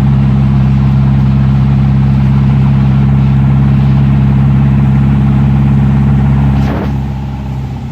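Air-cooled VW Beetle flat-four engine running at steady road speed, heard from inside the cabin as a loud, even drone. The note dips briefly about seven seconds in, then picks up again.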